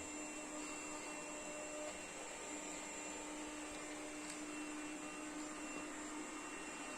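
Puppyoo R30 robot vacuum running steadily: an even motor hum with a faint high whine.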